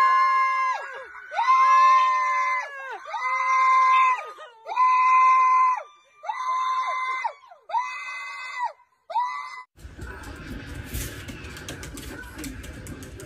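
A person screaming over and over, about eight long high-pitched screams of around a second each, coming shorter toward the end. About ten seconds in it cuts to a noisy hiss and low rumble with scattered clicks.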